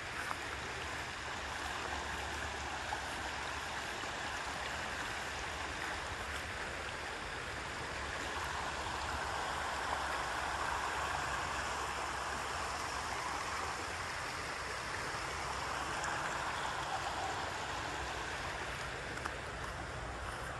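Shallow river running over rocks: a steady rushing of water that grows a little louder about eight seconds in.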